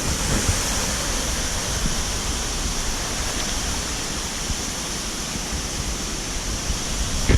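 Mountain stream water rushing over rocks: a steady hiss.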